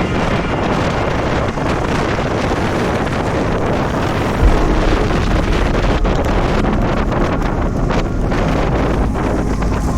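Storm wind buffeting the microphone: a dense, steady rush with a low rumble that grows heavier about four seconds in.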